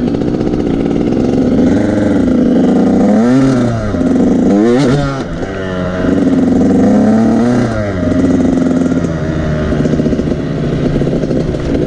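Motorcycle engine running under way, its pitch climbing and dropping several times as the throttle is opened and closed.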